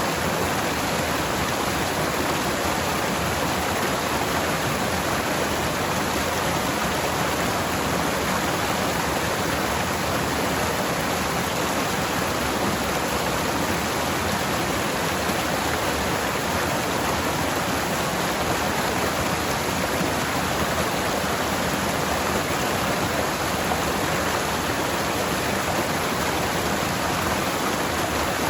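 Forest stream flowing over rocks: a steady, even rush of water.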